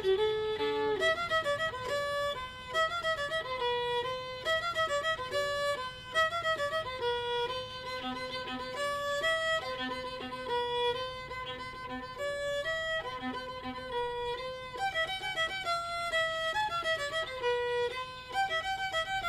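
Background music: a fiddle playing a melody.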